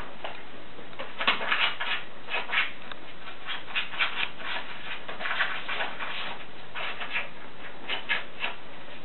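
Paper envelope and card rustling and crinkling in irregular short bursts as a meerkat paws and noses at it, starting about a second in.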